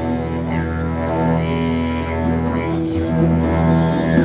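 Didgeridoo playing a continuous low drone, its upper overtones sweeping up and down.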